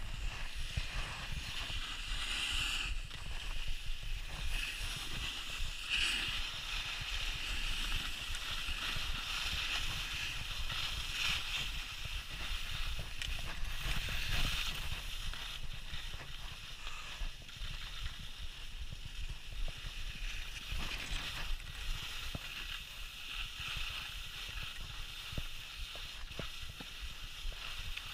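Skis sliding and scraping over packed snow on a downhill run, a steady hiss, with wind rumbling on the microphone.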